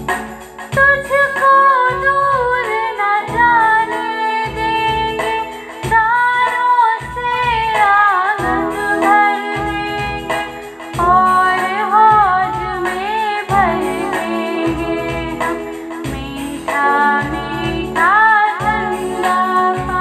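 A woman singing a Hindi children's poem to a melody, over a steady percussion beat.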